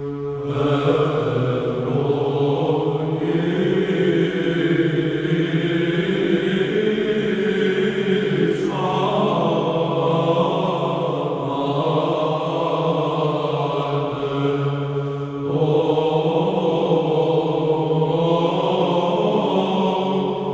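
Slow Orthodox church chant: a melody sung in long held notes over a steady low drone (ison), moving to new phrases about 9 and 15 seconds in.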